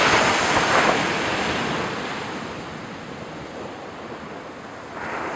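Ocean surf: a wave breaking and washing out, fading over several seconds, then another swelling near the end.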